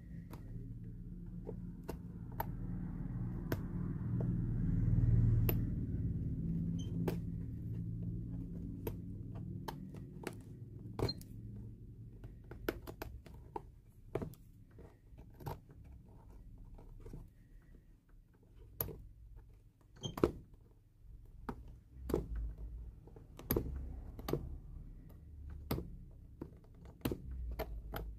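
Irregular small sharp clicks and ticks as a steel pick digs and flicks old welt stitch threads out of a shoe's insole, with a low rumble of handling over roughly the first half.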